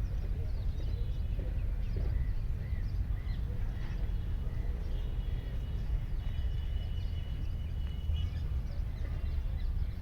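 Many small birds chirping and twittering, with a few held whistled notes near the middle, over a steady low rumble.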